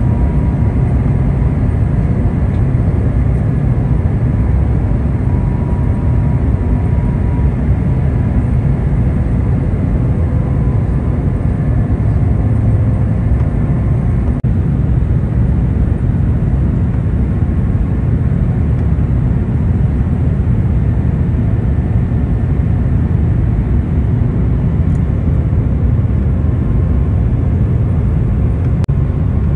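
Steady low rumble inside the cabin of an Airbus A350 descending to land: the noise of its Rolls-Royce Trent XWB engines and the airflow over the fuselage, with faint steady tones over it.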